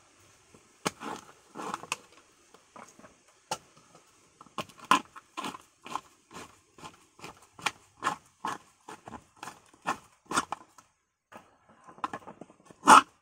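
Irregular sharp cracks and knocks, about one or two a second, as dried coconut meat is pried loose from the hard half-shell when making copra. The loudest crack comes near the end.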